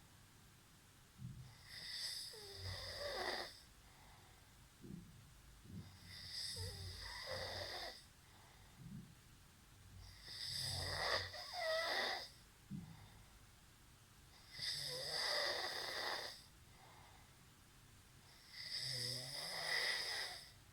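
Snoring in a slow, even rhythm: five long rasping breaths about four seconds apart, each carrying a high whistling note, with short low puffs between them.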